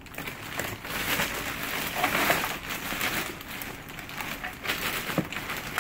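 Black plastic garbage bag rustling and crinkling as gloved hands dig through it, with irregular crackles throughout.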